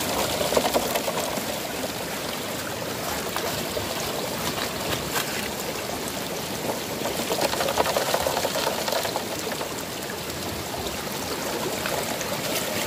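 River water running through a gold sluice box, with a bucket of gravel poured into its head just after the start and the flow swelling again around eight seconds.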